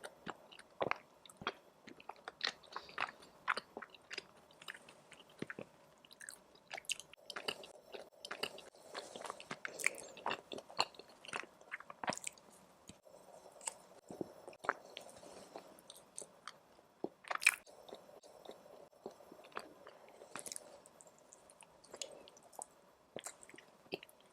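Close-miked chewing and mouth sounds of a person eating, with many irregular wet smacks and clicks and a sharper click about seventeen seconds in.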